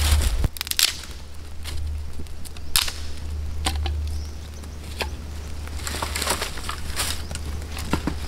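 Freshly lit campfire of dry kindling crackling, with sharp irregular snaps and pops about a second apart.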